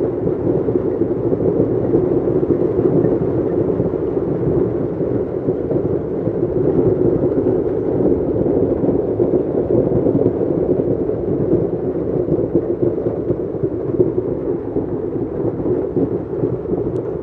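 Heavy hail mixed with rain pelting pavement and parked cars, a loud, steady din with no separate hits standing out.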